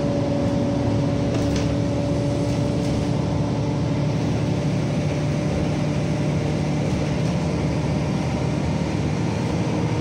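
Steady road and engine noise of a moving vehicle heard from inside its cabin, with a low, even hum.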